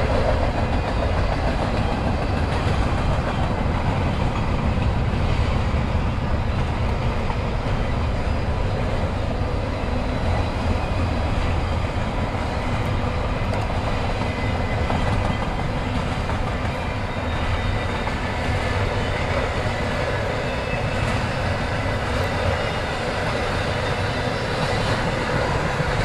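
Freight train's cars rolling past steadily, steel wheels running on the rails.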